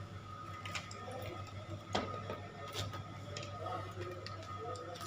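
Scattered light clicks and taps of a laptop being handled and closed up, with a steady low hum and a faint steady high tone underneath.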